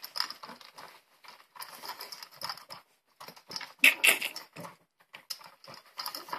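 Pug puppy eating fast from a steel bowl: quick, irregular smacking and crunching mouthfuls with clinks of the bowl in its wire stand, loudest in a cluster about four seconds in.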